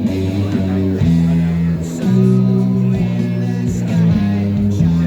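Background music with guitar: sustained notes that change about once a second.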